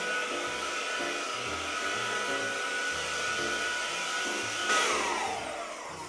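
Cordless handheld air duster (a small cleaner with an air-duster function) blowing a strong jet of air, a steady fan whine over rushing air. Near the end it is switched off and the motor's whine falls away as it spins down.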